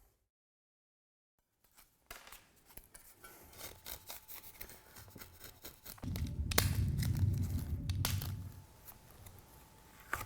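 A moment of dead silence, then scratchy rustling and scraping handling noises with a few sharp clicks, louder for a couple of seconds past the middle.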